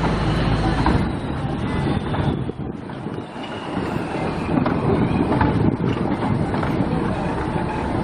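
Narrow-gauge passenger train running along the track, heard from a coach window: a steady rumble with a few sharp knocks, and a low hum that drops away about a second in.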